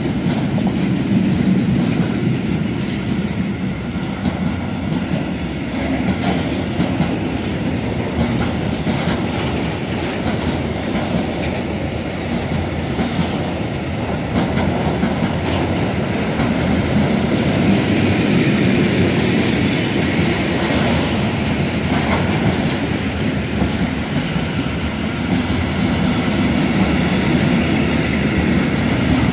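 Mixed freight train's wagons, car transporters and then tank wagons, rolling past at speed: a steady rumble of steel wheels on the rails with the clickety-clack of wheelsets over rail joints.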